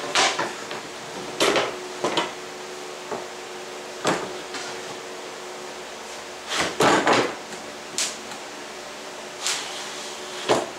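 Thin plywood panels handled on a plywood workbench: a string of about eight sharp knocks and short clattering scrapes as the pieces are picked up, moved and set down. A steady faint hum runs underneath.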